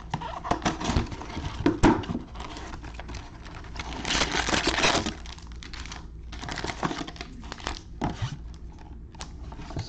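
Cardboard trading-card box being opened and its plastic-wrapped card packs pulled out and set down: a run of clicks and taps with wrapper crinkling, and a louder rustling slide about four seconds in.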